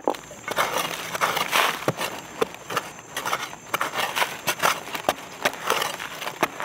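A metal digging blade chopping into dry, crumbly soil in irregular strikes, roughly two a second, with loose earth scraping and falling between them: digging out a wild beetle burrow.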